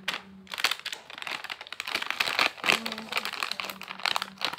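Plastic snack packet crinkling as it is handled and turned over in the hands: a busy run of irregular crackles.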